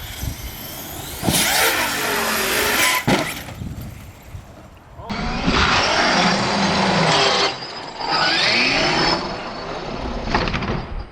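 Radio-controlled car motor revving hard in three bursts of a few seconds each, its whine rising and falling in pitch, with gritty tyre noise.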